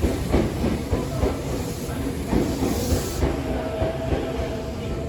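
Tokyo Metro 7000 series electric train running through the station, wheels clacking over rail joints over a steady rumble. A steady whine comes in about three seconds in.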